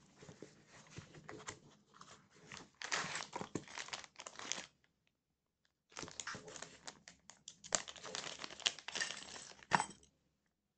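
Clear plastic packaging bags crinkling and rustling as small spray-gun parts are handled, with scattered small clicks. This comes in two stretches with a pause of about a second between them, and a sharper knock near the end.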